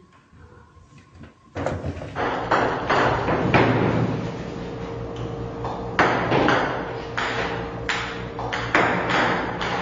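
Table-tennis robot firing ping-pong balls that clatter and bounce on the table, a quick run of sharp clicks and taps over a steady hum, starting abruptly about a second and a half in. Before that there are only a few faint taps.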